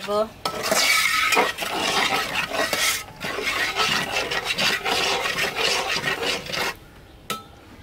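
Metal spatula stirring and scraping split lentils around an aluminium cooking pot, a quick run of scrapes against the pot that stops near the end. The dal is being sautéed in spiced oil.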